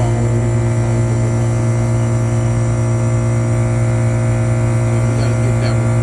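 Lennox single-compressor packaged rooftop unit running, a steady loud electrical hum from the compressor.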